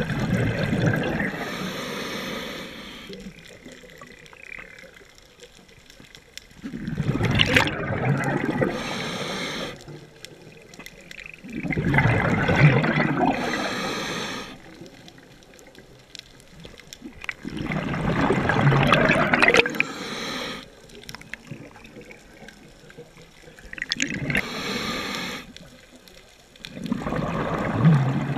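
A scuba diver breathing through a regulator underwater. About every five to six seconds comes a burst of exhaled bubbles rushing and gurgling past the camera, with a short regulator hiss, and quieter gaps between breaths.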